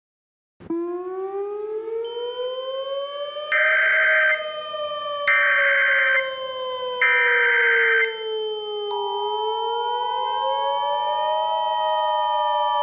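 Emergency Alert System alert sequence over a wailing siren tone that slowly rises and falls. About three seconds in come three loud data bursts about a second long each, the SAME header repeated three times. About nine seconds in, the steady two-tone EAS attention signal begins.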